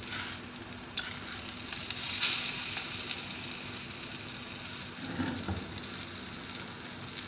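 Black-chickpea kababs shallow-frying in a little oil in a pan, a steady sizzle, with a click about a second in and a brief louder stir around five seconds as a spatula turns them.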